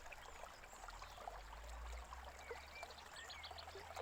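Faint babbling stream with a few short bird chirps over it and a low steady hum underneath.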